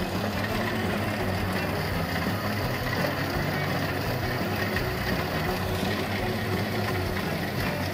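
Kubota rice combine harvester running steadily while cutting rice: its engine and threshing machinery at a constant level.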